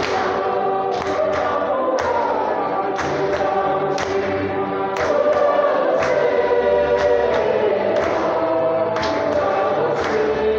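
Choir singing a Kinyarwanda Catholic hymn of praise in held chords, over a steady drum beat about once a second.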